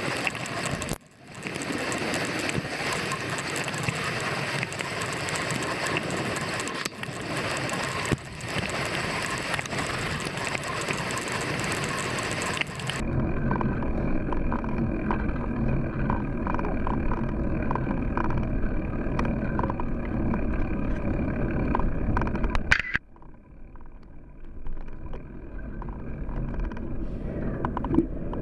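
Noise of a road bike in motion, picked up by a camera mounted on the bike: a steady rush of wind on the microphone and tyre noise on tarmac. The sound changes abruptly partway through and drops quieter near the end.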